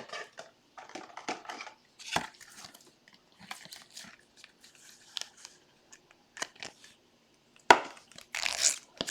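Hands handling trading cards and plastic card holders: scattered rustling, scraping and small clicks, with a sharper click and a burst of rustling near the end.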